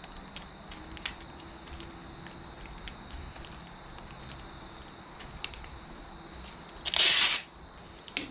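Gloved hands pressing and smoothing tape along the edge of a foam bulkhead panel, with small scattered crackles and clicks, then a strip of tape pulled noisily off its roll for about half a second near the end.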